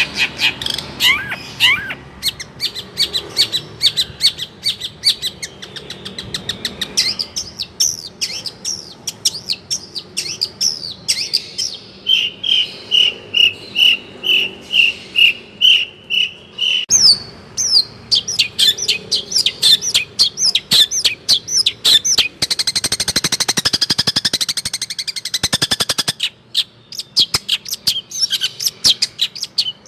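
Long-tailed shrike (cendet) singing a fast, varied song of rapid chirps and trills. About twelve seconds in it repeats one even note about ten times, and later it gives a dense buzzy rattle lasting about three seconds.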